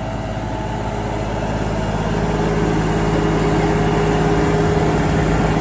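A tractor's engine running steadily, growing gradually louder.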